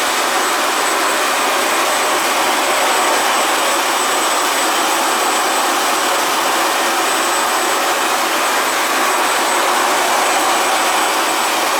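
Handheld 700 W cold-spark jet gun spraying outdoor spark powder: a steady, loud rushing hiss from its blower and nozzle, with a thin high whine running under it.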